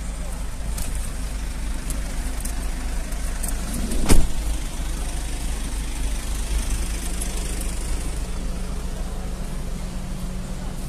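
Fire engines running steadily at the scene, a low continuous engine rumble with a steady hum coming in a little past halfway. One sharp thump about four seconds in is the loudest sound.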